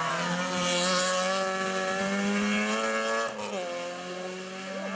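Citroën Saxo rally car's engine held at high revs through a hairpin, one steady note climbing slightly. About three seconds in the note drops off suddenly to a quieter, lower running sound.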